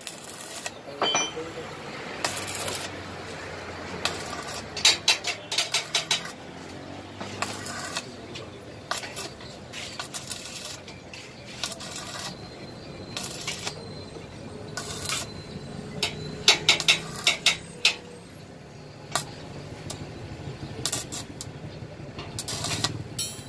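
Stick (shielded metal arc) welding on a steel swing arm: the electrode arc hissing and crackling steadily, with clusters of sharp spitting pops.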